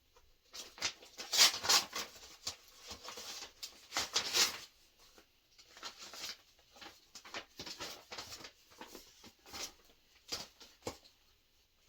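Paper and plastic sample packets and coupons rustling and crinkling as they are handled and sorted, in uneven bursts with short pauses.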